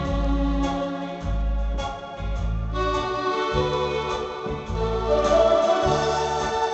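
Accordion playing a slow tune with an organ-like voice: sustained melody chords over bass notes that change about once a second.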